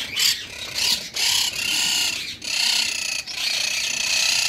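Monk parakeets (quaker parrots) calling in a flock with harsh, grating screeches. The calls come in several long stretches with brief breaks between them.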